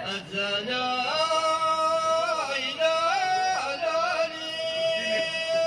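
A man singing solo into a microphone, unaccompanied: an ornamented line of ahwach sung poetry that moves in steps between held notes and settles into a long held note near the end.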